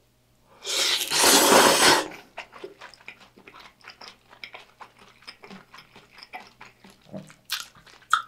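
A loud slurp of thick udon noodles in kimchi broth, lasting about a second and a half, followed by close-up wet chewing with many small clicks.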